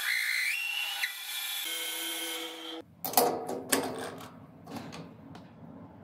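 Metal lathe running while a cutter ground from a broken drill bit, held in the tailstock drill chuck, cuts into a spinning metal sleeve, with a whine that rises in pitch in the first second. The sound cuts off abruptly about three seconds in, followed by a few sharp metal clinks and knocks as the sleeve is handled in the lathe's three-jaw chuck.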